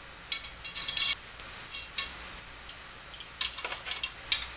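Small metal hardware clinking and rattling as it is handled by hand: several quick clusters of light metallic clicks with a ringing edge, the sharpest near the end.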